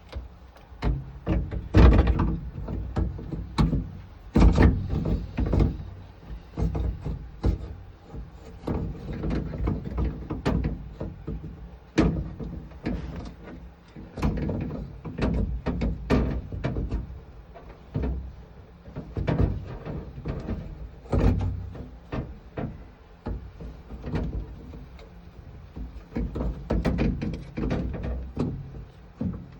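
Irregular knocks, clunks and clicks of hands and tools working on a car door's inner parts during a power window regulator repair, with heavier thuds now and then.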